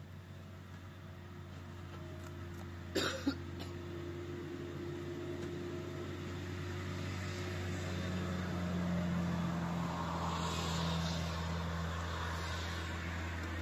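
A motor running steadily with a low hum, getting louder in the second half and then easing slightly. A brief, sharp double noise about three seconds in.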